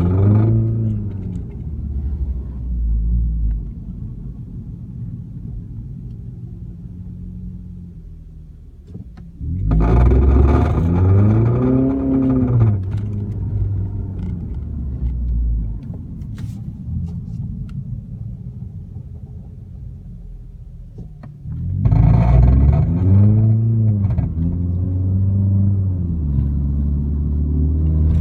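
Car engine idling, blipped twice about twelve seconds apart, the pitch rising and falling back to idle each time. The owner suspects an exhaust leak.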